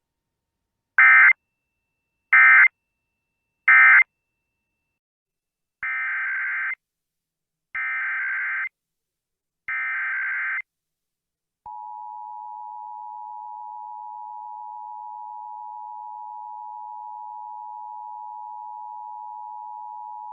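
Emergency Alert System tones: three short SAME data bursts (the end-of-message code closing the test), then three longer data bursts (the header of the next test), then, about 12 seconds in, the steady two-tone attention signal, quieter than the bursts, held for about nine seconds.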